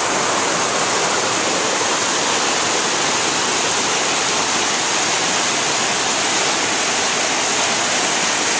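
Water cascading over rocks at a waterfall, a steady, unbroken rush.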